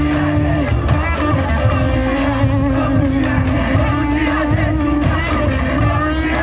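Live Carnival bloco music played loud to a large crowd: singing over held notes and a heavy, continuous bass.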